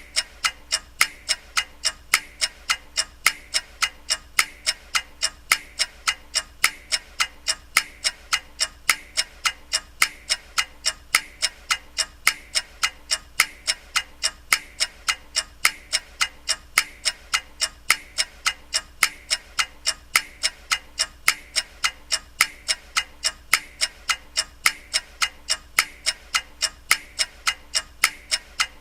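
Ticking clock: sharp, evenly spaced ticks, a little over two a second, with a faint steady hum underneath.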